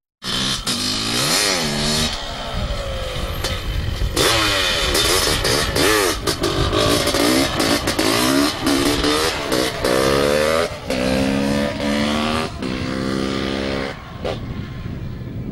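Honda CR500 two-stroke single-cylinder dirt-bike engine revving hard in repeated rising sweeps as it accelerates through the gears. Near the end it drops away and fades.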